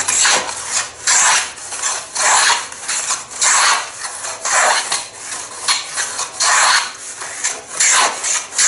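Edge of a wooden lute rib blank pushed repeatedly over the blade of a sharp, generously set wooden jointer plane mounted upside down in a vise. Each pass makes a short cutting stroke as shavings come off, about one stroke a second, eight or so in all.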